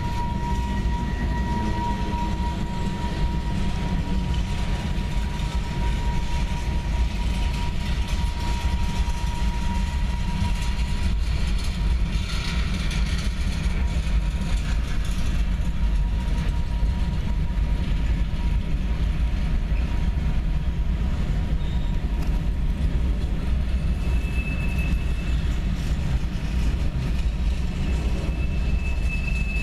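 Freight cars of a mixed freight train rolling past close by, with a steady low rumble. A thin, steady high squeal sounds for about the first third, and a higher-pitched squeal comes in near the end.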